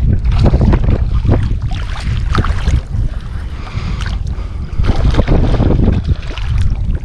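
Heavy wind rumbling on the microphone over choppy water, with water lapping and splashing throughout; near the end a hooked speckled trout thrashes at the surface.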